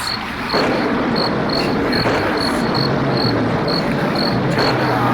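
Cricket-like insect chirping, short high chirps repeating about three times a second, over a loud, steady hiss with a faint low hum underneath.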